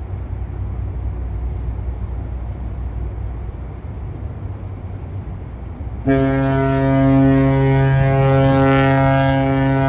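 The cruise ship Adora Magic City's horn sounds one long, deep, steady blast, starting suddenly about six seconds in, over a low steady rumble. It is the ship's signal as it is seen off from port.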